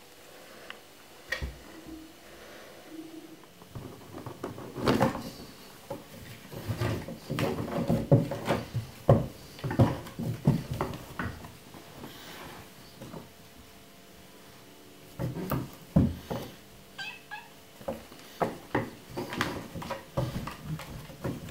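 A tabby kitten play-fighting with a hand on a wooden floor: irregular flurries of thumps, scrabbling paws and bumps, with a lull midway, and a few short kitten meows.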